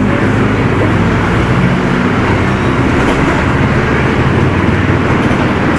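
Diesel engine of a Mercedes-Benz OF-1722 bus running steadily, a low engine hum under an even wash of mechanical and road noise.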